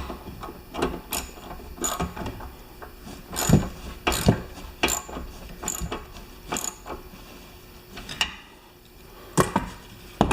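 A string of sharp metallic clicks from hand tools working on the snow thrower's carburetor, irregularly spaced, about one a second or faster, with a short lull near the end.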